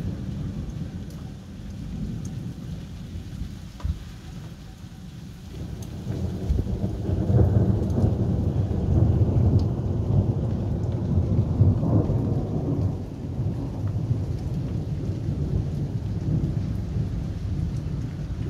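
Thunder rumbling over steady rain. A long, deep roll swells about five seconds in, stays loudest for several seconds, then slowly tails off beneath the rain's hiss.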